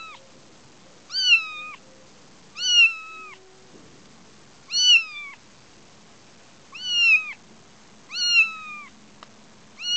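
Young kitten meowing over and over, high-pitched calls that each drop in pitch at the end, one about every one and a half to two seconds: a kitten calling for its mother, unhappy on long grass.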